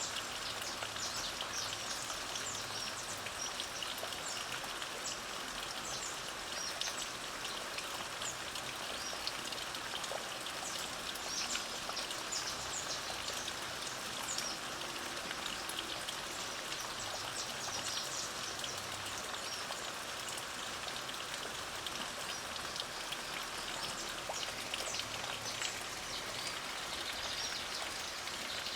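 Light rain falling steadily, with small birds giving short, high chirps scattered throughout.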